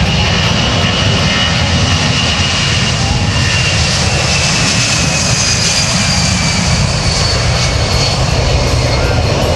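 C-17 Globemaster III's four Pratt & Whitney F117 turbofan engines running at high power: loud, steady jet noise with a high whine that slowly falls in pitch.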